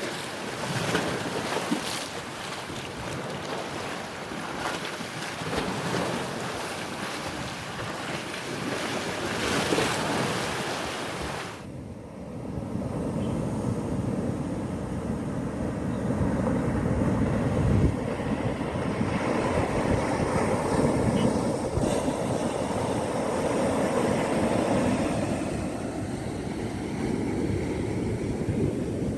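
Sea waves breaking and washing on a shore, a steady hissing surf. About twelve seconds in it cuts abruptly to a deeper, duller rumble of surf with much less hiss.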